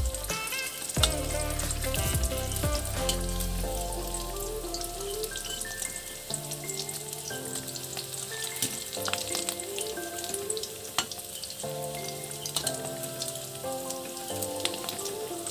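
Lentil fritters (dal bora) sizzling and crackling as they deep-fry in hot oil in a wok, with a metal spatula now and then knocking against the pan. Faint background music plays underneath.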